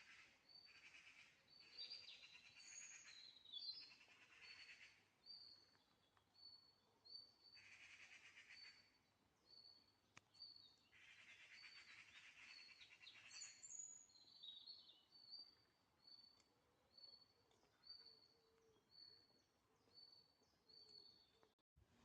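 Songbirds singing in the open: one bird repeats a short high note about once a second, while others add bursts of denser, warbling song every few seconds. The sound drops out for a moment just before the end.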